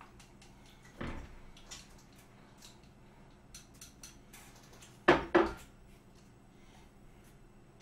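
Porcelain tableware clinking on a table: a light clink about a second in, then two sharp clacks close together about five seconds in, with faint taps in between.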